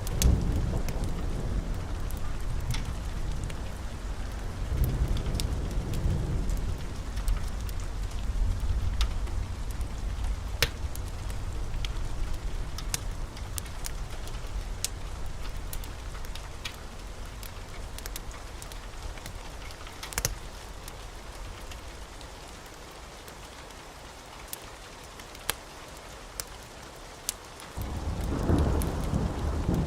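Thunder rumbling low and slowly dying away, with a fresh roll building near the end, over steady rain. Sharp, scattered crackles and pops of a wood fire sound throughout.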